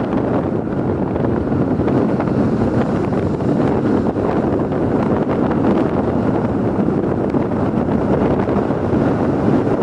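Strong wind buffeting the microphone, a steady, loud, low rumble with no let-up.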